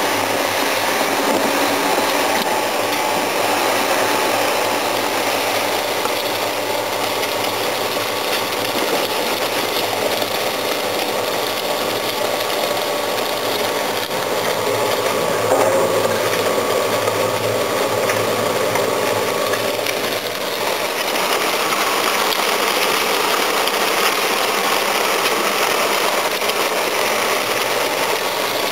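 Stainless steel inclined screw auger conveyor running steadily while conveying aluminium sulphate granules: a continuous mechanical running noise of the drive and screw with the granules moving through it.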